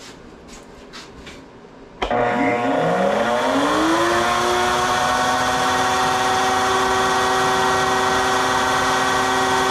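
A few faint clicks. About two seconds in, the electric motor of a stationary woodworking machine switches on and spins up, its pitch rising for a couple of seconds, then runs steadily at full speed with a whine.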